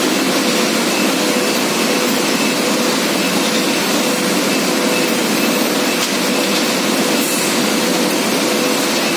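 Starch mogul jelly candy production line running: a loud, steady machinery noise with a faint steady hum through it.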